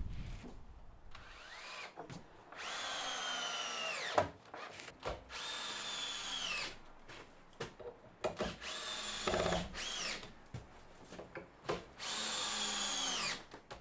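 Cordless drill driving screws through the door frame into the timber framing, in about five short runs, each whine dropping in pitch as the trigger is let go, with small clicks and taps between runs.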